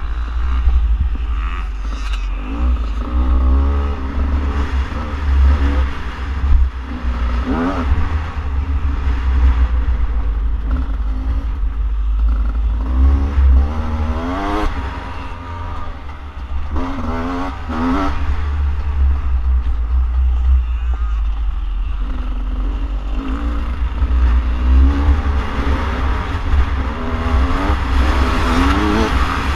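2017 Beta 300RR two-stroke single-cylinder dirt bike engine being ridden hard. It revs up in repeated climbing sweeps, about five strong ones, and falls back between them, over a constant low rumble.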